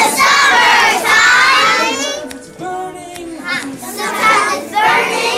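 A class of kindergarten children loudly singing back a line of a call-and-response song together, half chanting and half shouting. The group is loud for about the first two seconds, a single voice comes in between, and the group is loud again from about four seconds in.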